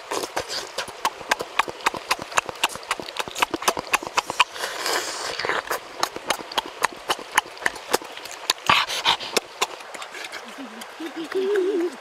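Close-up eating sounds of juicy fruit being bitten and chewed: wet lip smacks and mouth clicks in a quick, irregular run of several a second.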